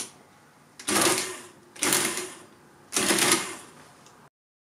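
Marchant 8CMR electromechanical calculator clearing its dials and returning its carriage: a key click, then three short motor-driven whirs of gears and levers, about a second apart.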